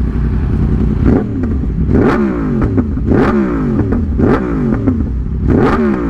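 2020 Yamaha R1's crossplane inline-four with an Austin Racing GP1R aftermarket exhaust, its throttle blipped about five times. Each rev rises sharply and falls back, and the exhaust pops on the overrun.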